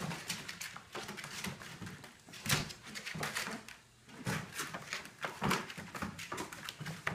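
Bluetick–Catahoula cross puppies moving about, making irregular scratching, scuffling and knocking noises, with a sharper knock about two and a half seconds in.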